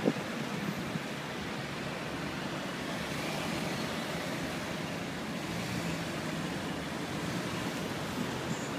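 Steady road and traffic noise heard from inside a slowly moving car in city traffic, with no distinct events.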